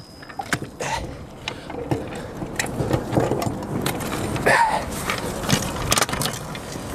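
Drum brake shoes being pulled off a SAF trailer axle's brake anchor: irregular metal clanks, knocks and scraping, and a heavy lined shoe set down on concrete near the end.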